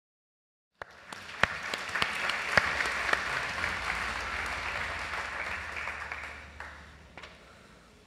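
A large audience applauding. It starts suddenly about a second in, with many separate claps, holds steady, then fades away over the last couple of seconds.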